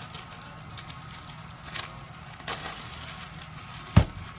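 Trading cards and their packaging rustling and crinkling as they are handled, with two short crinkles, then a single dull thump near the end.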